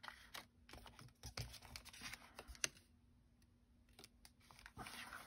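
Faint clicks and light rustling of die-cut cardstock pieces being flipped through by hand. The clicks are quick and frequent in the first half, then sparser.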